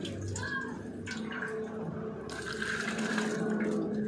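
Liquid splashing and sloshing as the tractor air cleaner's wire mesh screens are washed by hand in diesel, over a steady low hum.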